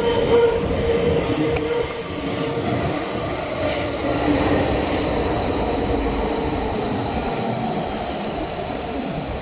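Athens metro train heard from inside the carriage, running out of a tunnel and into a station with a steady rumble. A steady high-pitched tone comes in over the rumble a few seconds in.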